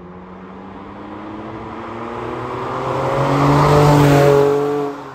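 Porsche 911 997 CSR's flat-six engine running hard as the car drives past, its note climbing in pitch and growing louder, loudest about four seconds in, then dropping in pitch and fading away.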